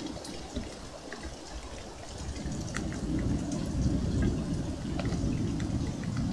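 Steady rain falling, with scattered drops ticking close by. A low rumble of thunder builds about two seconds in and fades away near the end.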